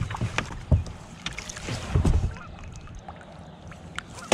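A fishing boat being handled as a crappie is netted and brought aboard: scattered sharp clicks and taps, with dull thumps about a second and two seconds in and a sharp knock near the end.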